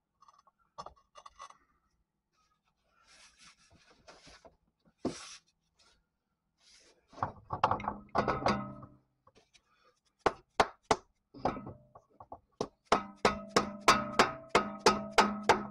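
A few scattered knocks, then from about ten seconds in a quick run of sharp metallic raps with a ringing tone, about four a second near the end: the end of a new Mini Cooper CV axle shaft being struck to drive its inner splined end into the transmission until the retaining snap ring engages.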